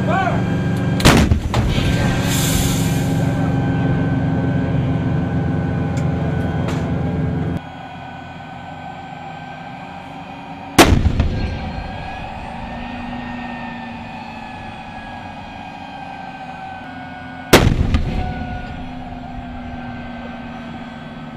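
M109 Paladin 155 mm self-propelled howitzers firing: three sharp blasts, about a second in, about 11 seconds in and about 17 seconds in, the last two the loudest, each followed by a long rumbling fade. Under the first part a steady engine drone runs and stops abruptly about 7.5 seconds in.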